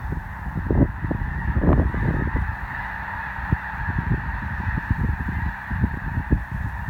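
A large flock of snow geese calling together: a dense, unbroken chorus of many overlapping honks. Gusts of wind buffet the microphone with an irregular low rumble.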